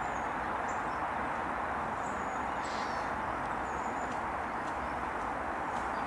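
Steady outdoor background noise with several faint, high, thin bird calls over it: short whistled notes at the start, about two seconds in and about four seconds in.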